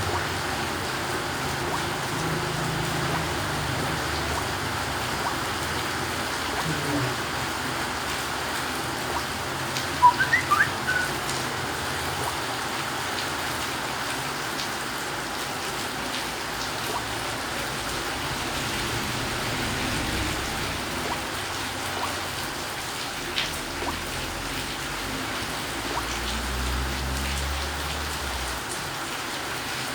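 Steady rain-like hiss, with a brief cluster of quick high chirps about ten seconds in.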